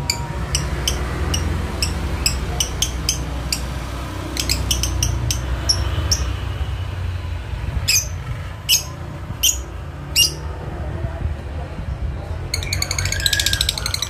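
Lovebird giving sharp, shrill chirps, two or three a second, the loudest around eight to ten seconds in, then breaking into a fast rattling chatter (the 'ngekek' trill) near the end.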